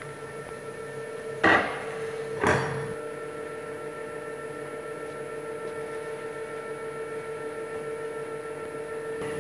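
Steady machine hum of a baklava workshop, broken by two short knocks about a second apart as dough and a metal rolling tube are handled on the worktable.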